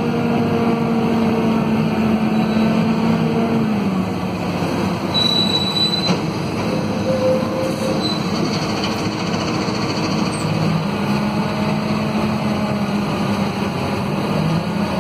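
Scania DC9 five-cylinder diesel engine and ZF Ecomat automatic drivetrain of a Scania K230UB city bus, heard from inside the cabin while driving. The tone steps down about four seconds in as the bus eases off, a brief high squeal comes about five seconds in, and the tone rises again near the end as it pulls away.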